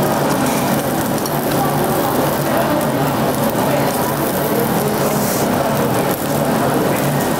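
Pork sizzling on a Korean barbecue tabletop grill: a steady, loud hiss with a low hum under it.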